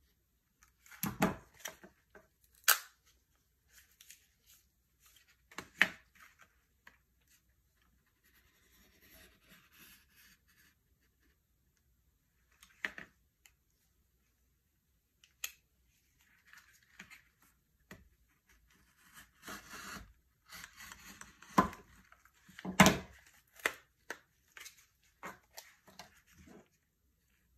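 Plastic blister packaging with its card backing being cut and pulled apart by hand: crinkling plastic and card broken by sharp snaps and clicks. A few loud snaps come in the first six seconds, and a longer stretch of crinkling with the loudest snaps comes in the second half.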